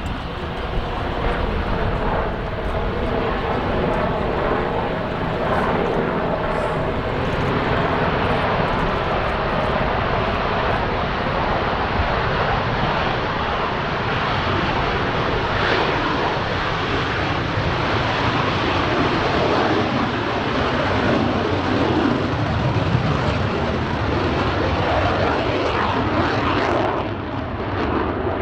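Mitsubishi F-2 fighter's single General Electric F110 turbofan running loud and steady, with a whine that slowly falls in pitch over the first several seconds.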